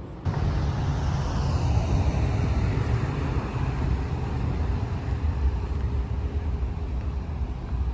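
Outdoor city traffic noise: a steady low rumble of road vehicles that starts abruptly just after the start, brightest in the first couple of seconds.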